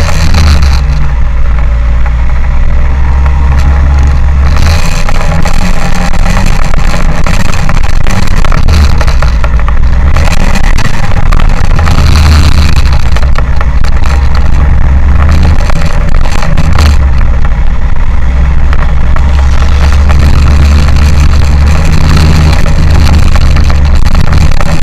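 A car driving, heard through a camera mounted on the outside of its body: a loud, continuous low rumble of engine, road and wind noise that swells and eases every few seconds.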